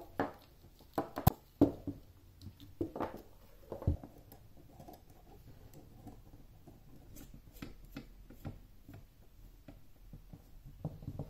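Hands handling a GoPro camera and a small handheld gimbal, fitting the camera into the gimbal's clamp: a few sharp plastic clicks and knocks in the first four seconds, then faint fiddling and rubbing.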